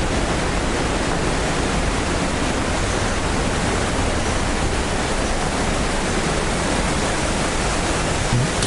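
Kegon Falls, a waterfall about 97 m high, rushing in a steady, even roar of falling water.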